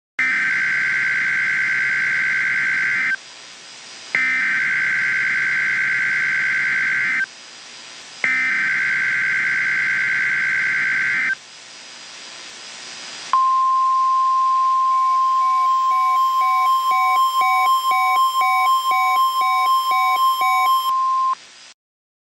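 Emergency Alert System SAME header: three bursts of buzzing, warbling data tones, each about three seconds long with a second's pause between them. Then the long, steady, high weather-radio alert tone sounds for about eight seconds, with a quicker beeping about twice a second over it, and cuts off abruptly.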